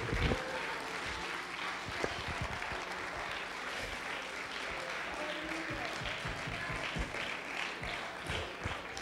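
Congregation clapping and applauding in praise, steady throughout.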